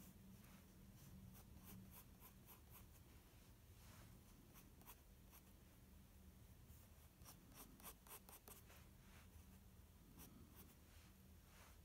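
Faint graphite pencil scratching on sketchbook paper in quick runs of short, flicking strokes, the kind used to sketch fur.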